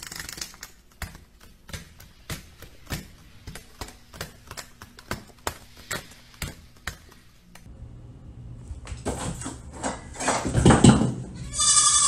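Caique parrots' claws tapping on a tile floor as they walk and hop: short, sharp taps, two or three a second. Near the end it gets louder and a short pitched call is heard.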